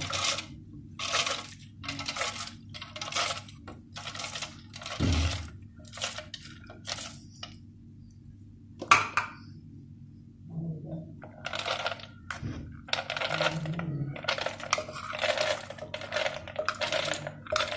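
Soaked urad and chana dal being spooned and tipped into a plastic blender jar: a run of short pours and spoon knocks, about one a second, with a break of a few seconds in the middle and one sharper knock partway through.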